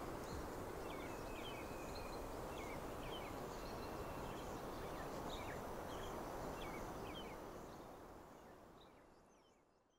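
Faint outdoor field ambience: a steady noise with scattered short bird chirps, fading out near the end.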